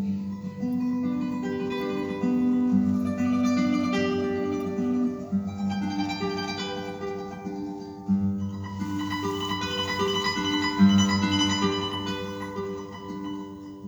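Solo classical guitar, the closing bars of a piece: a melody of ringing notes over bass notes, the level swelling and easing back several times.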